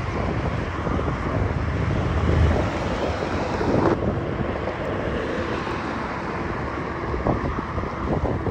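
Road and wind noise from a moving vehicle: a steady low rumble with wind buffeting the microphone and occasional small knocks, changing abruptly about four seconds in.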